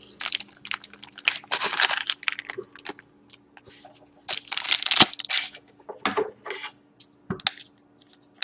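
Hockey card pack wrappers being torn open and crinkled by hand: a series of short, irregular rips and rustles with brief pauses between them.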